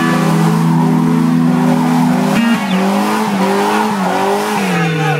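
A car doing a burnout: the engine is held at high revs while the spinning rear tyres squeal and smoke. The revs dip briefly a few seconds in and fall away near the end.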